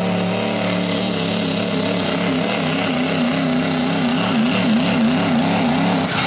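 Duramax V8 turbo-diesel pickup engine running hard under full load while pulling a weight sled. Steady at first, then from about halfway the revs surge up and down a couple of times a second.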